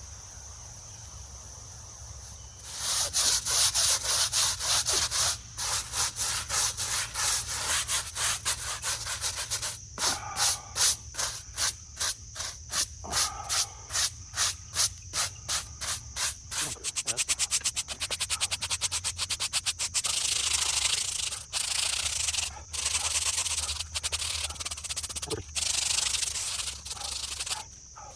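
A brush scrubbing a moss- and mildew-covered gravestone with cleaner, in rapid back-and-forth strokes that start about three seconds in and quicken in the second half. Insects trill steadily underneath.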